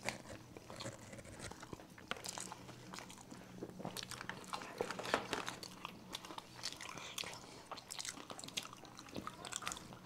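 Close-miked chewing and biting of chocolate-coated momos with a brownie filling: a steady run of small mouth clicks and crackles.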